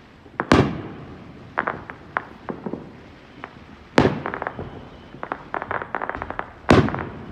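Aerial firework shells bursting: three loud booms, about half a second in, about four seconds in and near the end, each trailing off, with smaller sharp pops and crackles between them.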